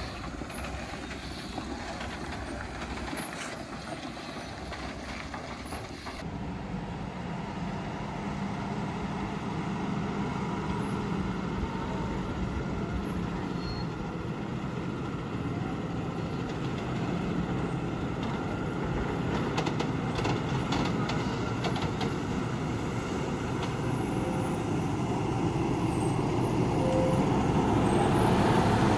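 Diesel engine of an overloaded lorry running under load as it works round a hairpin bend, growing louder as the lorry comes closer near the end.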